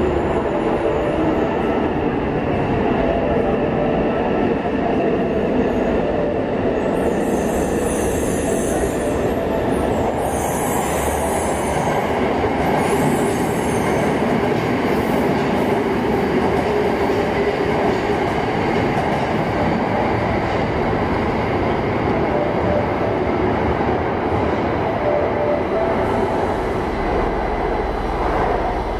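A Yokohama Municipal Subway 3000N-series train runs into an underground station and brakes to a stop alongside the platform, while a second train runs on the other track. The rumble is loud and steady, with three short bursts of high-pitched hiss or squeal in the first half.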